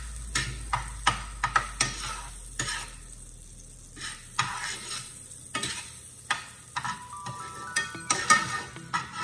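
Metal spoon scraping and knocking against a stainless steel skillet as butter is stirred and melts with a light sizzle. The knocks are sharp and irregular, a few each second.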